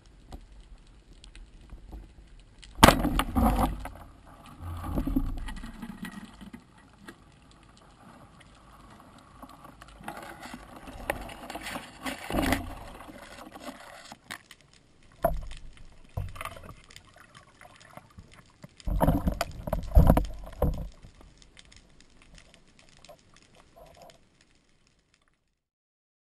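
Water sloshing and splashing around a diving camera, in irregular bursts that are loudest about three seconds in and again around twenty seconds, stopping abruptly near the end.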